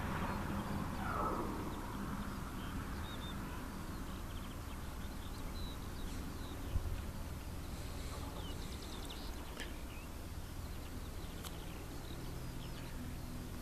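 Steady low hum and rumble from a Nordex N90 wind turbine running, with faint bird chirps over it. A louder wash of noise, like a passing aircraft, fades out in the first two seconds, and there is a single short knock about seven seconds in.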